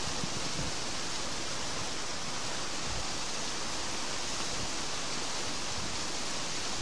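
Water gushing out of a concrete outlet and churning white into a river pool: a steady rushing hiss.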